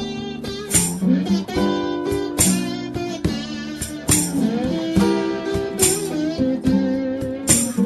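Acoustic blues band playing an instrumental passage without vocals: guitars with a sharp percussive accent about every second and a half to two seconds.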